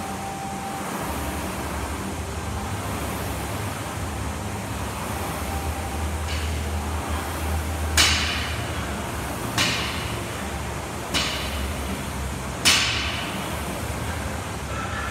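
A barbell loaded with bumper plates strikes the rubber gym floor four times, about a second and a half apart, each a sharp knock with a brief rattle of the plates, as the bar is brought back to the floor between lifting reps. A steady low hum runs underneath.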